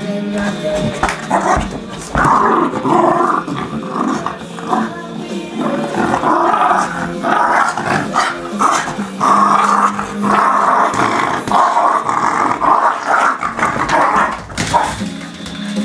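Small terrier growling on and off as it attacks a ball, over background music.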